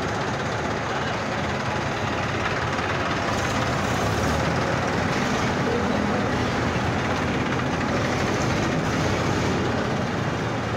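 Diesel tractor engines running steadily at low speed, a column of Massey Ferguson tractors moving in convoy with one engine close by.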